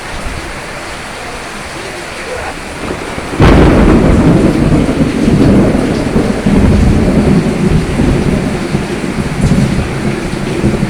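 Steady rain, then a sudden loud thunderclap about a third of the way in that rolls on as a long low rumble over the rain, slowly easing.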